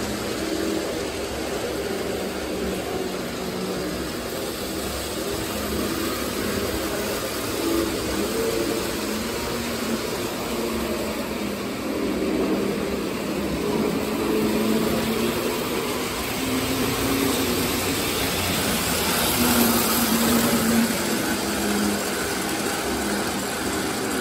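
Small electric motor of a Lionel O-gauge lift bridge whirring steadily as it lowers the bridge span, mixed with the hum and rumble of a model train running on the tracks.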